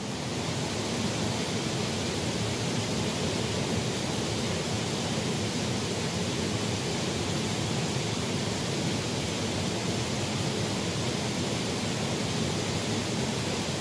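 Steady, even rush of water from a small stream flowing over its shallow bed.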